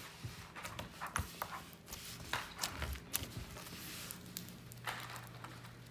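Foam bead slime being squeezed and kneaded by hand, giving quiet, irregular crackles and pops as the beads press together.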